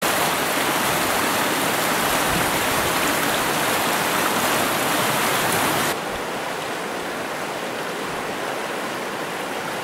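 Flowing stream water rushing steadily, with no pitch or rhythm; it drops suddenly to a softer rush about six seconds in.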